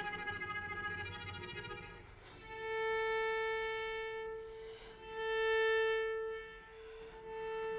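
Solo cello: a busier, wavering passage fades out about two seconds in, then one high note is held over three long, swelling bow strokes, with a soft scrape of the bow changing direction between them. The second swell is the loudest.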